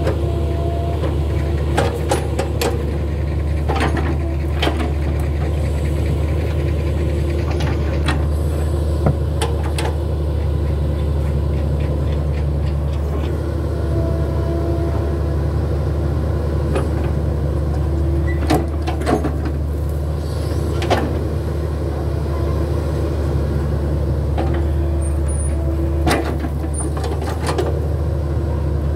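Hitachi hydraulic crawler excavator's diesel engine running steadily as it digs into a hillside. About a dozen short, sharp clanks and knocks are scattered through it as the bucket and boom work the soil.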